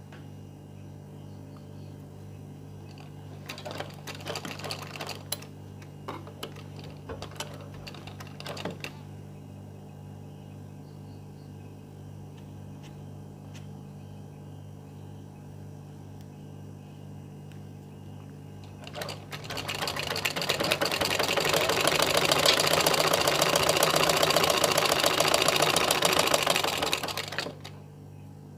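Domestic sewing machine stitching layered cotton fabric in one continuous run of rapid needle strokes. The run starts about two-thirds of the way in and stops shortly before the end. Before it there are only a few short clicks and rustles over a steady low hum.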